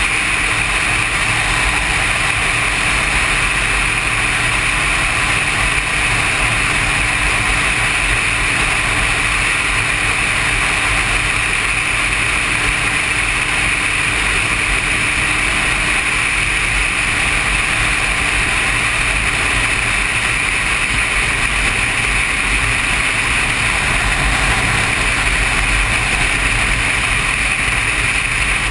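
Motorcycle cruising at a steady road speed: a constant engine drone mixed with wind and road noise, with no change in throttle throughout.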